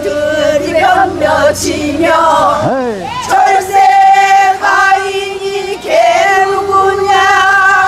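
Group of women singing a Korean traditional folk song together, holding long notes, with a sharp upward swoop in pitch about three seconds in.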